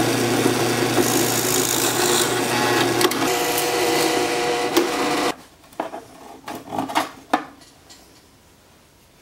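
Benchtop drill press running while it bores a hole in a wooden strip, cutting off abruptly about five seconds in. A few light knocks and handling sounds follow.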